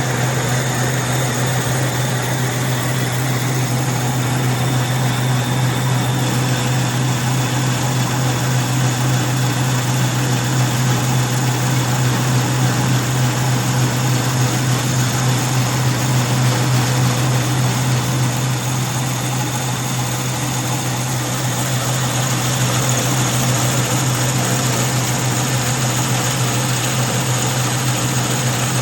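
Concrete milling machine running steadily: a strong low engine hum under an even rushing noise, with no breaks.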